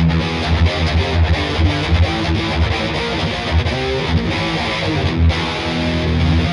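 Yamaha ERG121 electric guitar played through distortion: a riff of quickly changing picked notes with a heavy low end.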